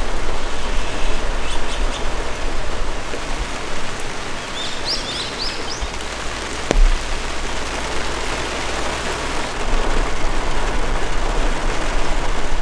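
Steady rain falling, with a bird chirping in short bursts about a second in and again around five seconds in. One sharp tap stands out a little before seven seconds in.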